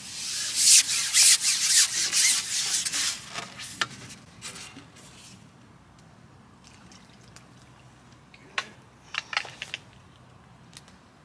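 Carbon fishing pole rubbing and scraping as it is drawn back, a loud rasping rub for the first few seconds that fades out. A few light clicks follow near the end as the rig at the pole tip is handled.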